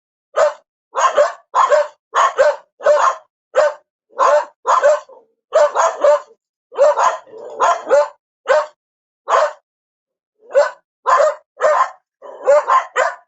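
A dog barking repeatedly, in single and double barks about two a second, with a pause of about a second before the barking resumes.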